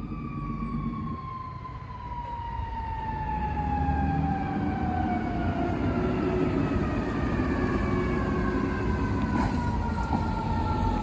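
Fire truck siren sounding one long, slowly falling wail that drops steadily in pitch, with a low truck engine rumble rising under it a couple of seconds in.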